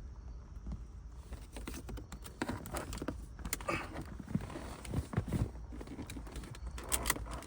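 Scattered plastic clicks and taps as the trim around a 2016 Mazda CX-9's radio control panel is handled and its retaining tabs are pushed in to work it loose.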